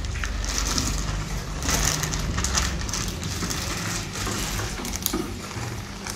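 Water splashing and sloshing in irregular surges as fish are tipped from a plastic bag into an aquarium tank, over a steady low electrical hum.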